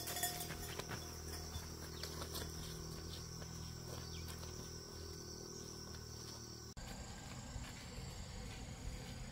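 Rural outdoor ambience with insects droning steadily at a high, even pitch over a low steady hum. The background changes abruptly about two-thirds of the way through.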